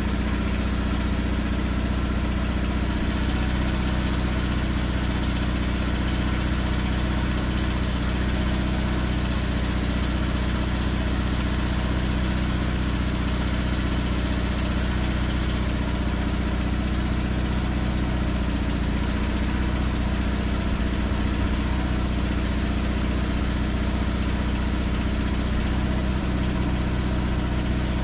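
A 1994 Ford E350 bucket van's engine idling steadily, running while the Telsta bucket lift is worked.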